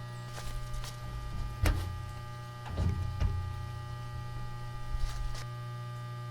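Steady electrical mains hum from the arc rig's power supply, with a sharp crack under two seconds in, a cluster of crackles around three seconds and a couple more about five seconds in.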